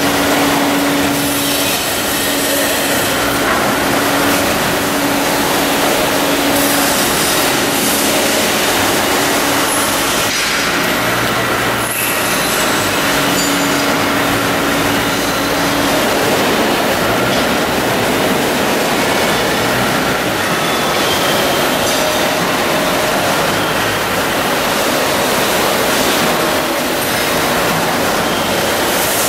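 Genox tyre shredding line running loudly, with whole tyres being fed up an inclined conveyor into the shredder: a dense, steady industrial din with scattered knocks and a low hum that comes and goes in the first half.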